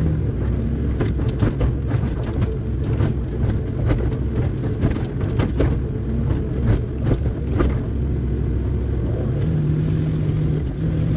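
Excavator diesel engine running steadily, heard from inside the cab. Many short, sharp knocks and clatters come between about one and eight seconds in, then the engine hum steadies near the end.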